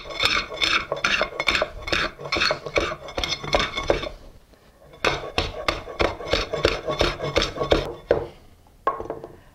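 Whole peppercorns cracked under the flat bottom of a stainless steel pot rocked and pressed on a wooden cutting board: a fast run of cracking and metal scraping strokes, about four a second, in two bouts with a short pause about halfway.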